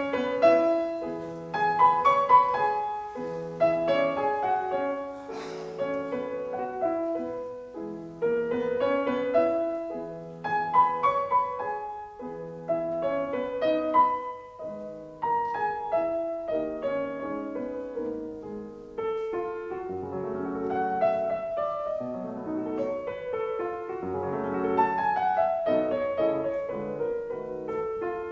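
Background music: a calm, slow solo piano piece, its notes struck in a steady pattern and left to ring out.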